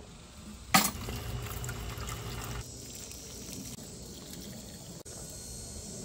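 A sharp knock as a blue plastic watering can is grabbed, under a second in, then water running and pouring from the can.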